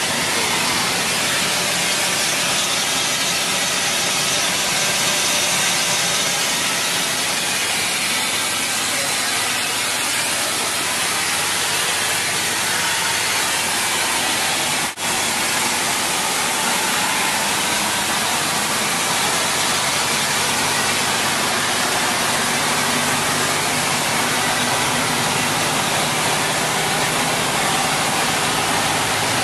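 Steam locomotive standing in steam, with a steady loud hiss of escaping steam and a faint low hum beneath it.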